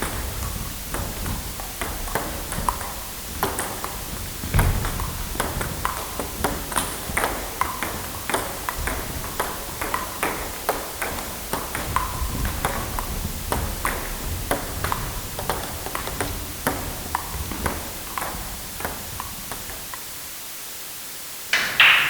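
Sports practice ambience: balls being struck and bouncing in quick, irregular succession, each hit a sharp knock with a short ringing ping. A brief louder, higher burst comes near the end.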